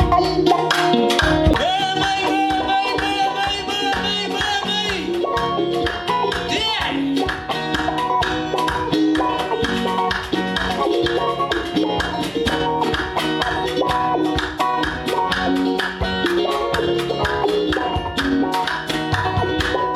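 Band music: plucked guitar lines over a steady, fast drum beat, with no singing transcribed.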